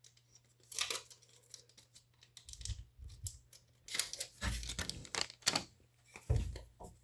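A trading-card booster pack being opened and handled: the plastic wrapper scratching, rustling and crinkling again and again, with a few dull knocks of hands and pack against the table about halfway through and near the end.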